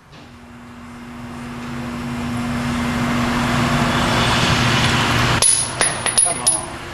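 Power wrench running steadily for about five seconds, then stopping abruptly. Several sharp metallic clinks with a high ring follow, like a chrome socket or bolt dropping.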